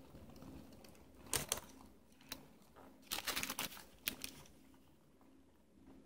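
Crunching and chewing of a bite of a toasted griller burrito filled with Fritos corn chips: short crackly crunches about a second in, a burst around three seconds in and a last one near four seconds.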